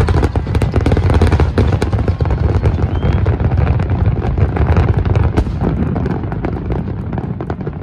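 Aerial fireworks display: a dense barrage of booming shell bursts and crackling, heard across water, easing off a little near the end.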